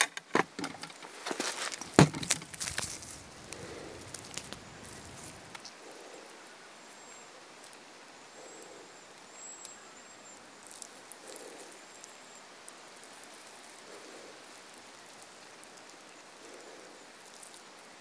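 Handling noise from a freshly caught eel held in the hand: rustles and several sharp knocks in the first few seconds, the loudest about two seconds in. After that a quiet outdoor background with a few faint high chirps.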